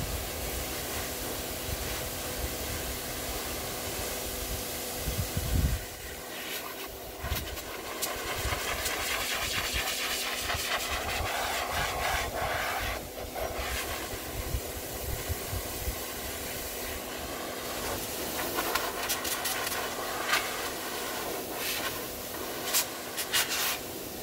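Pet grooming blower (high-velocity dog dryer) running steadily: a rushing hiss of air over a constant motor hum. A few sharp clicks near the end.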